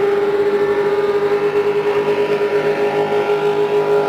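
Racing boats' engines droning steadily across the water at one held pitch, with a slight wavering in loudness.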